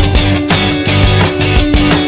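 Background music: an upbeat rock track with guitar and a steady drum beat.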